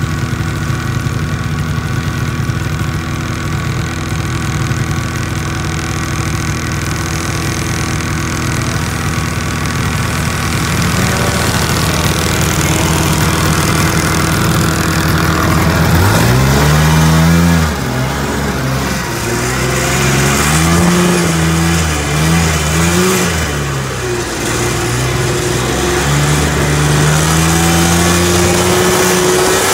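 1970s John Deere snowmobile two-stroke engine running at a steady speed, then from about halfway through revving up and running at varying throttle through deep powder, its pitch rising and falling.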